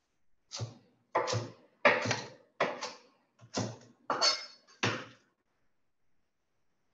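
Kitchen knife rough-chopping kale on a cutting board: about ten quick chops, each a short knock with a dull thud, in uneven pairs over some four seconds, stopping about five seconds in.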